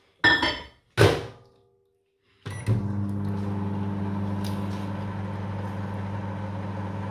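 Daewoo microwave oven: two sharp clacks, then about two and a half seconds in it switches on and runs with a steady low hum as it heats for 30 seconds.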